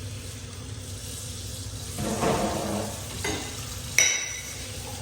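Water running from a tap, a steady hiss, with a louder stretch about two seconds in and a sharp clink of a hard object about four seconds in.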